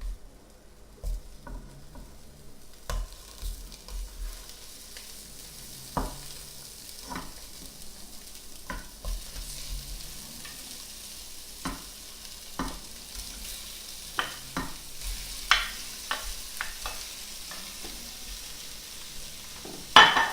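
Sausages frying in oil in a pan, a sizzle that grows stronger as the pan heats, with scattered knocks and scrapes of a utensil against the pan and a loud clatter near the end.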